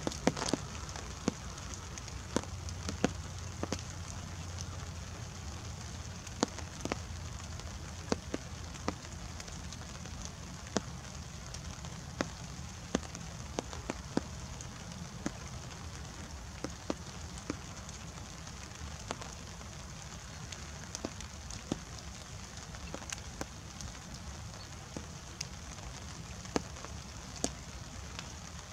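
Light rain falling around the microphone: a steady soft hiss with close drops ticking at irregular intervals, about one or two a second, over a low rumble.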